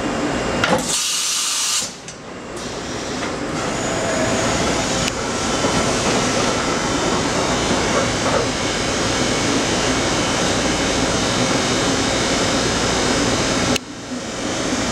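Matsuura MC-510V CNC vertical machining center running, its spindle and end mill milling metal with steady machine noise. There is a short hiss about a second in, and the sound drops abruptly about two seconds in and again near the end.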